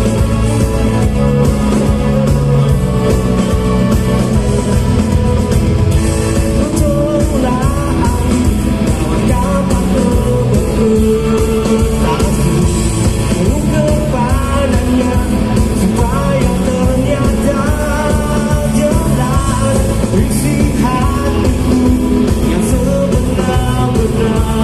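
Live rock band with orchestra playing, electric guitars, bass and drums under a male lead vocalist singing, heard from among the concert audience.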